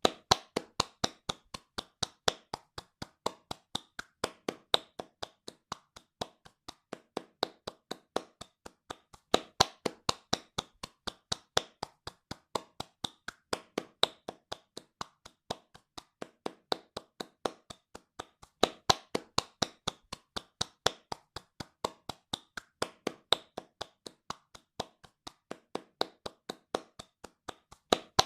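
Hands clapping fast in a steady rhythm, about four sharp claps a second, some claps louder than others.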